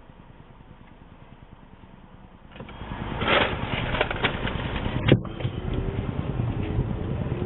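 Muffled, rapid flickering noise recorded by a Blueskysea B1W dashcam's own audio: a recording fault of the camera. About two and a half seconds in it gets much louder, with a run of clicks and one sharp click a little past the middle.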